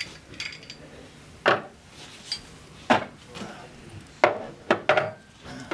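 Sharp metal clinks and knocks, about five spaced through a few seconds, as tools and steel parts are handled while taking the electric clutch off a hydraulic pump shaft.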